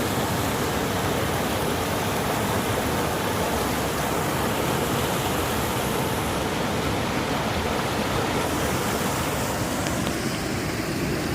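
Sandusky River water flowing: a steady, even rush.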